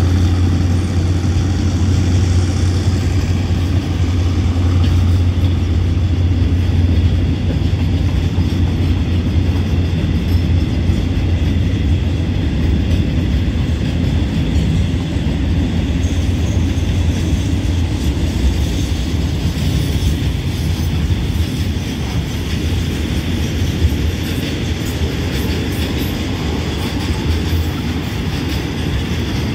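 Container freight train's loaded flat wagons rolling past, a steady low rumble of steel wheels on rail.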